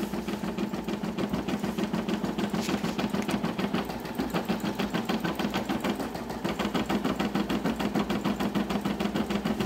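Brother computerized embroidery machine stitching out a design on its own, the needle clattering in a rapid, even rhythm over a steady motor hum.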